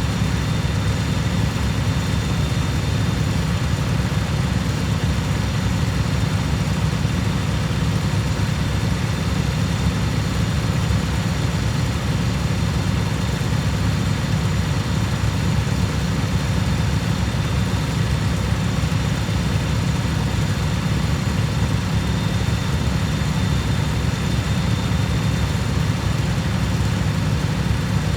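Cub Cadet lawn mower engine running steadily at an even speed, with no change in pitch or level.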